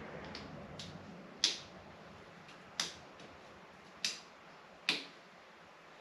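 Small sharp clicks from a screwdriver working a screw-terminal wiring connector: four louder clicks about a second apart, with fainter ticks between them.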